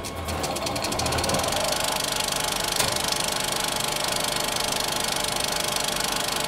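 Film projector sound effect: the fast, even clatter of film running through a projector, speeding up over the first second and then running steadily.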